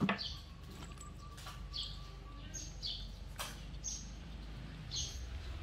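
A small bird chirping: short, high chirps that drop in pitch, repeating about once a second over a low steady background hum.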